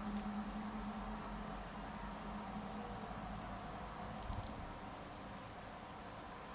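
Small songbird giving short, very high double and triple chirps about once a second, over a low steady hum that fades about halfway through. The loudest chirps come with a soft low thump about two-thirds of the way in.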